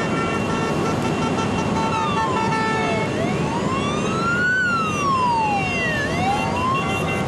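An emergency-vehicle siren wails, rising and falling slowly in pitch, about three seconds from one low point to the next. Under it runs the dense, steady rumble of the passing motorcycle procession and its escort vehicles.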